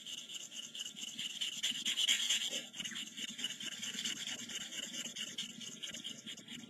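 Steel stab knife blade worked back and forth on a medium-grit gray ceramic sharpening stone, a run of light scraping strokes. The blade is held flat on its steep bevel to sharpen its second side.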